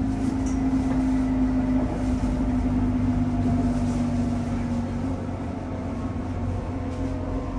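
Gyeonggang Line electric commuter train running, heard from inside the passenger car: a low rumble with a steady hum whose pitch drops a little about five seconds in.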